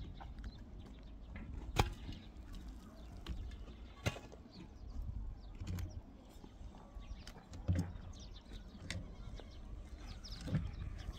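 Outdoor rural ambience: distant livestock bleating now and then and faint bird calls, with a couple of sharp knocks in the first few seconds.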